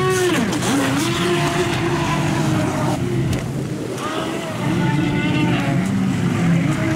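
ProBoat Recoil 26 RC boat's brushless electric motor whining under throttle. It starts with a quick rising-and-falling burst as the capsized hull is powered to roll upright, then holds a steady whine, cuts out around three seconds, and comes back rising around four seconds. Water splashing and wind hiss run underneath.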